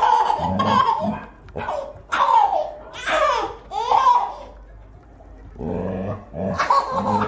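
Baby laughing hard in repeated bursts of belly laughs and squeals, with short breaths between them.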